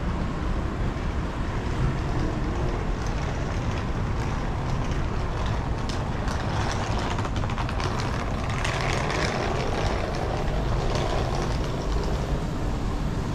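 Steady low rumble of city traffic noise, with scattered light ticks in the middle and a brief brighter hiss about nine seconds in.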